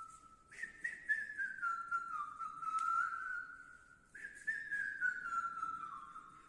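A man whistling a film-song melody, in two phrases that each begin high, about half a second and about four seconds in, and step down in pitch.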